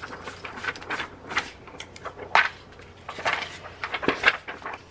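Repeated short, scratchy swipes and taps of a foam ink blending tool rubbed along the edge of a paper strip. Near the end a clear acetate sheet is handled.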